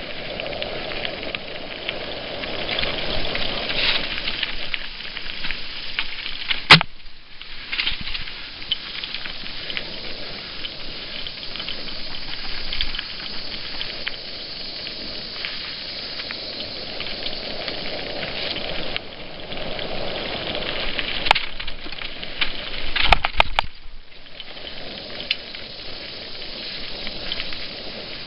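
Mountain bike riding fast over dry dirt singletrack, heard from a helmet-mounted camera: a steady crackle of tyres over dirt and dry leaves, with the bike and camera rattling. A single sharp knock comes about a quarter of the way through, and a quick run of knocks comes near the end, as the bike hits bumps.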